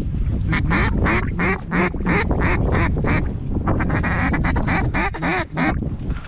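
Mallard-style quacking: rapid, evenly spaced quacks, about three a second, in two runs with a short break between them, over low wind rumble on the microphone.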